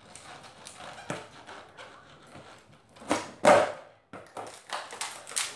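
Wooden skateboard knocking and clattering on a concrete floor as shoes step and stomp on the deck: scattered knocks, with two loud clacks in quick succession about three seconds in.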